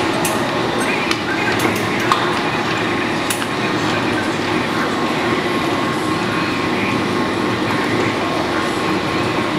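Large Lodge & Shipley oil-country hollow-spindle lathe running under power: a steady, loud mechanical drone with a faint steady whine. A few sharp clicks come in the first few seconds.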